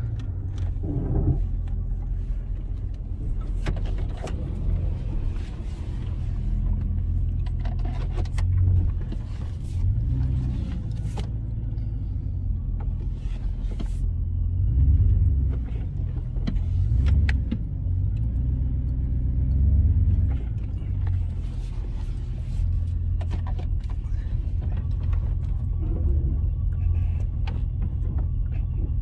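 Car engine and road noise heard from inside the cabin while driving slowly. The low drone swells several times as the car speeds up and slows, with a few scattered clicks.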